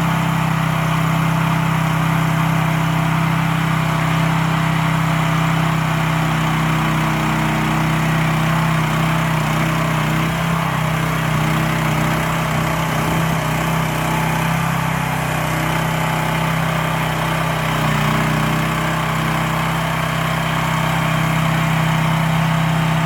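Small engine of an AGT Industrial H15 mini excavator running at a steady speed, its note wavering for a few seconds about halfway through before settling again.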